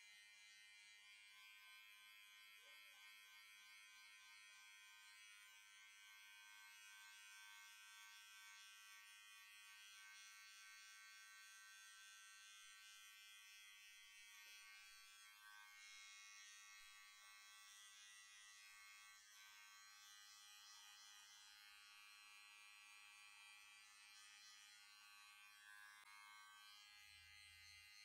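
Barber's electric hair clippers running with a faint, steady buzz.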